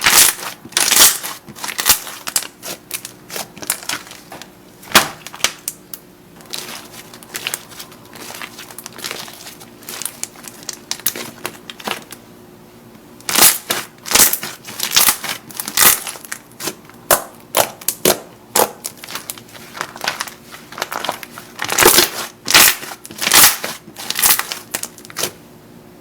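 Slime being squeezed and pressed, giving an irregular run of sharp crackles and pops. These thin out for several seconds in the middle, then come thick and fast again in two dense runs.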